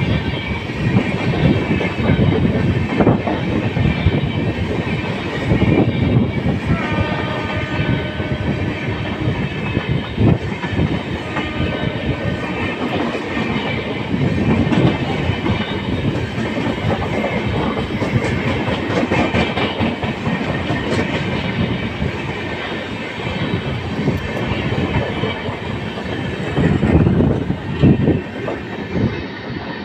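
Express train passing close by at speed: a steady loud rumble of coach wheels on the rails, with a rhythmic clickety-clack as the wheels cross rail joints. A pitched tone sounds for a few seconds about seven seconds in.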